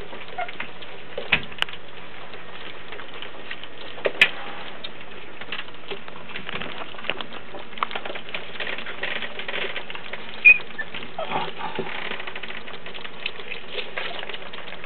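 Two-week-old Border Collie puppies eating soft puppy food from a steel bowl for the first time: irregular wet smacking, licking and small clicks. A short high puppy squeak comes about ten seconds in.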